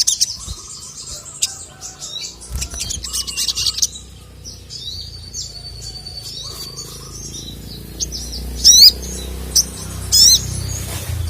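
Little spiderhunter (sogok ontong) calling: a run of short, sharp high chirps and trills, with two loud bursts of rapid chirps near the end.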